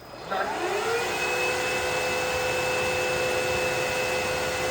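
Aspiron CA-022 wet-dry cordless vacuum's motor starting its self-cleaning cycle: a whine that rises in pitch over about a second, then runs steadily with a strong rushing of air and water.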